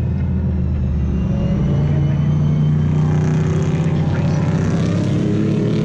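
A pack of GT race cars passing on the circuit, several engines running hard together with their notes overlapping. The sound builds over the first couple of seconds and then stays loud.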